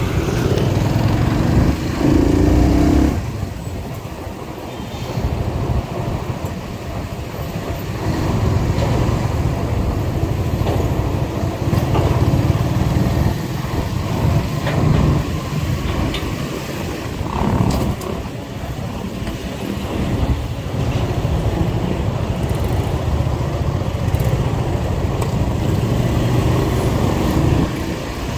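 A motorcycle's engine and road noise, heard from the rider's seat while riding through city traffic, with other vehicles around. It is louder for the first three seconds, then drops and stays uneven.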